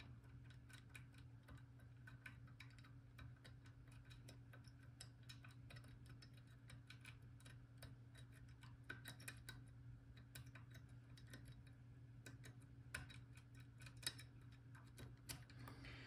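Faint, irregular small clicks and ticks of a disc-detainer pick turning the discs inside an Abloy Classic handbag padlock as it is picked, over a faint low steady hum.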